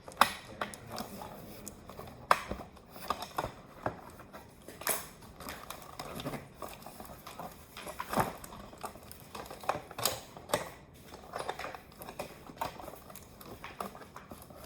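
Irregular light clicks, taps and knocks as small plastic toy pieces and packaging are handled.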